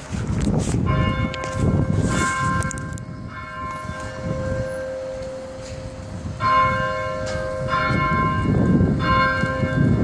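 Hallgrímskirkja's church bells ringing: several bell strokes about a second in, a lull of a few seconds while the tones ring on, then three more strokes a little over a second apart. An uneven low rumble runs underneath.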